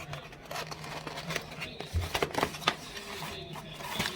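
Scattered light clicks and taps of small hand-tool and laptop-case handling, over a steady low hum.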